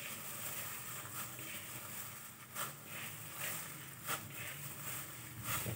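Faint sounds of a plastic-gloved hand mixing cake crumbs with chocolate ganache in a plastic bowl, with a few short, soft noises about two and a half, three and a half and four seconds in.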